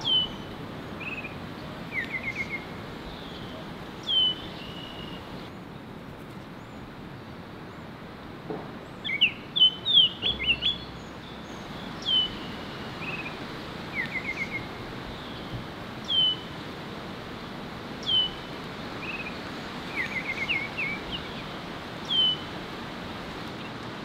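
Baltimore oriole calling: a short downward-slurred whistle repeated every few seconds, with short dry rattled chatters between them. A louder burst of quick whistled notes comes about ten seconds in, over a steady background hiss.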